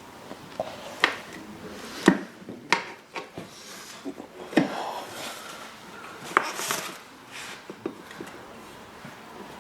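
Hands-on work on a dirt bike's rear wheel during a tyre change: irregular knocks, clanks and rubbing as the tyre and tools are handled against the rim, the sharpest knocks about two, four and a half and six and a half seconds in.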